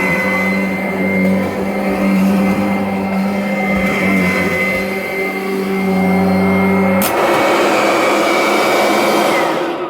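Kirby Avalir upright vacuum running steadily with a hum and a high whine. A click about seven seconds in changes its sound, and near the end the whine falls as the motor winds down. It doesn't sound bad at all, despite not having been run in a while.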